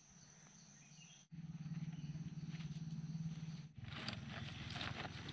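Steady high drone of forest insects, broken by two abrupt cuts, with a low steady hum between them. Near the end come crackling footsteps through dry leaf litter.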